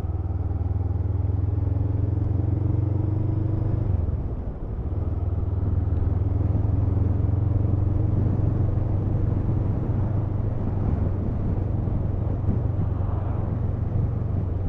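Honda CMX500 Rebel's 471 cc parallel-twin engine running steadily under way, with a deep, even hum. It eases off briefly about four seconds in and then picks up again.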